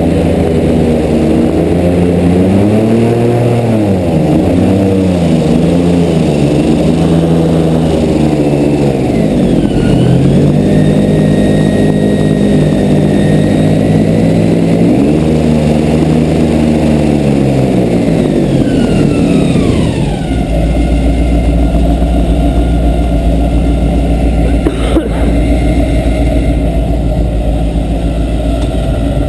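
Mud boat's 550-horsepower Mast fuel-injected LS V8 running hard, its revs rising and falling again and again as the boat drives across land. About two-thirds of the way through, the revs wind down and it settles into a steady low rumble, with a single sharp knock a few seconds later.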